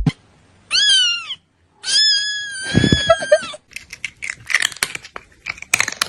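A cat meowing twice: a short rising-and-falling meow, then a longer drawn-out meow. A run of sharp clicks and rustles follows.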